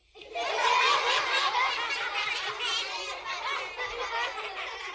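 A small studio audience of children laughing and giggling together, many high voices overlapping. It starts suddenly about a quarter second in, is loudest in the first second, then carries on steadily.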